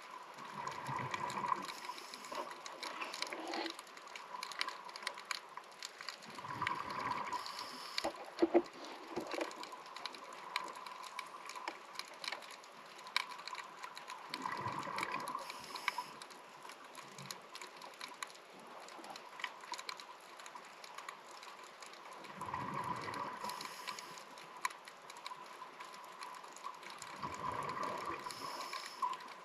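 Scuba diver breathing through a regulator, heard underwater: five bursts of exhaled bubbles rumbling past, roughly every six to eight seconds, with brief regulator hisses near them. Faint steady crackling runs underneath.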